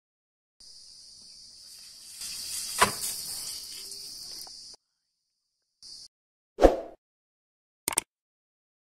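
Edited-in sound effects: a high hiss lasting about four seconds with a sharp crack partway through, then a short low whoosh, then two quick mouse-click sounds near the end as a subscribe button is clicked.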